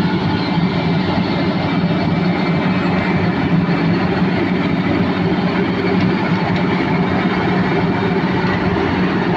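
Heavy diesel road-paving machinery running steadily, with a constant low engine hum under a dense mechanical din.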